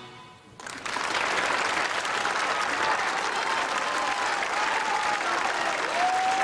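Audience applause breaking out about half a second in, right after the song stops, then going on steadily.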